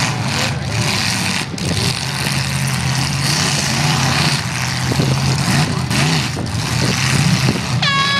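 Demolition derby cars' engines running and revving under a loud, noisy din. A steady high tone with overtones starts just before the end.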